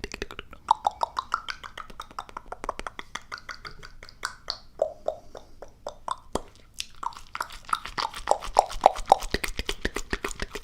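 Rapid, close-up ASMR clicking and popping sounds, several a second, some with a short hollow pitched pop, with a brief pause about six seconds in.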